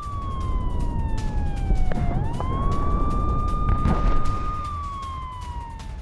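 Air-raid warning siren wailing: a long tone that slowly falls in pitch, swoops back up about two seconds in, holds, then falls again near the end, over a low rumble.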